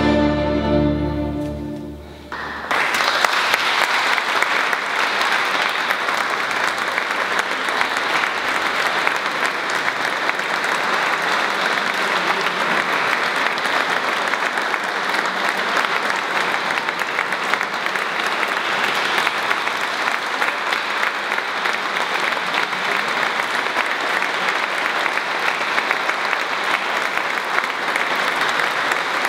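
An orchestra's closing held chord of a baroque piece dies away about two seconds in, and the audience at once breaks into steady applause.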